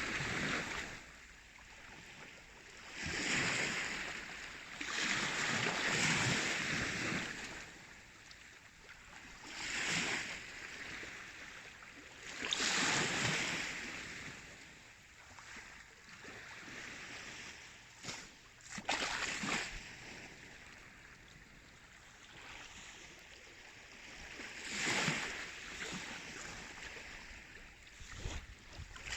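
Baltic Sea waves washing in, with a surge of rushing water every three to six seconds that then ebbs away. A few sharp splashes come about two-thirds of the way through.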